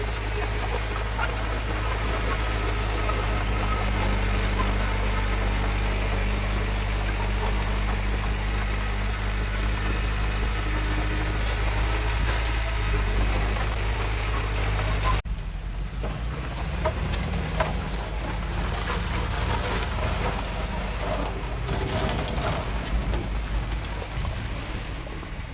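Heavy diesel earthmoving machinery running with a steady, even engine drone. About fifteen seconds in the sound cuts abruptly to a rougher, noisier stretch with scattered sharp knocks and clanks.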